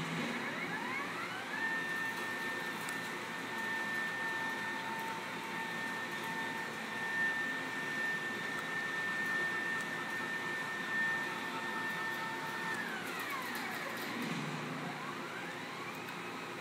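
Drive motors of a CNC vertical plasma and router table whining as the gantry moves. The pitch rises as the gantry speeds up, holds a steady two-tone whine for about eleven seconds, and falls as it slows to a stop about thirteen seconds in. It then rises again near the end as the next move starts.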